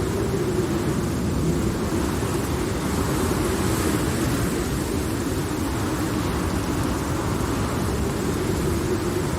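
Thunderstorm ambience: a long, steady low rumble of rolling thunder over the hiss of heavy rain, with no sharp cracks.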